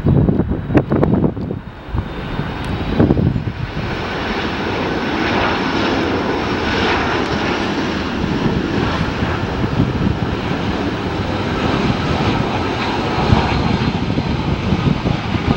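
Delta Boeing 757 jet airliner on final approach with gear down, its engine noise swelling about three seconds in and then holding steady as it passes overhead.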